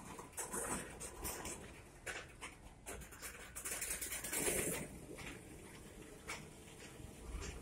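Freight gondola cars of a mile-long train rolling slowly as it starts up: irregular creaks, clunks and squeals from the wheels and couplers over a low rumble, loudest about four and a half seconds in.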